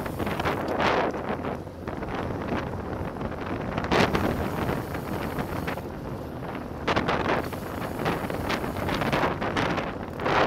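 Wind buffeting the microphone of a camera on a road bike descending at about 45 km/h, a rushing noise that swells and eases in gusts. A single sharp knock about four seconds in.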